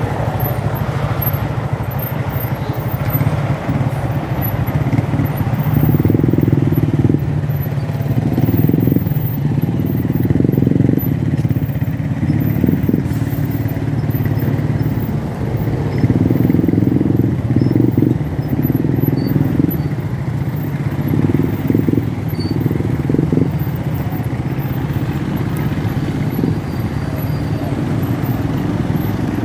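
Slow, congested road traffic: motorcycle and car engines running at low speed close by, the rumble swelling and easing every few seconds as motorcycles move past.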